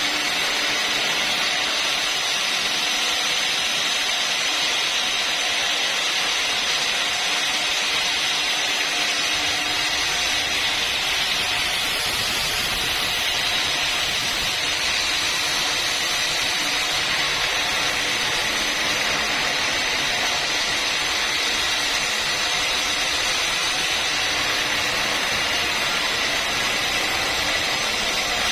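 Sawmill saw cutting timber lengthwise into planks: a steady, even, high-pitched hiss-like whine that runs without a break or change in level.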